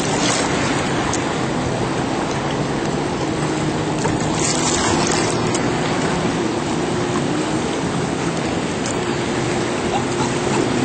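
Jet ski engine running steadily with a faint hum, over rushing water.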